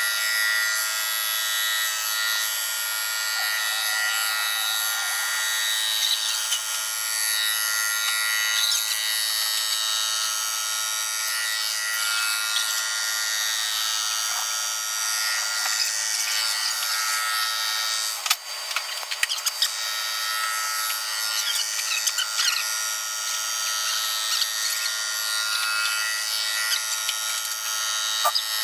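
Cylinder head resurfacing machine cutting the deck face of a cylinder head: a steady, high-pitched machining noise made up of several steady tones. A short patch of clicks and rattling comes about 18 seconds in.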